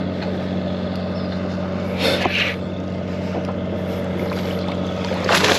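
Boat engine running with a steady low hum, with short bursts of hiss about two seconds in and again near the end.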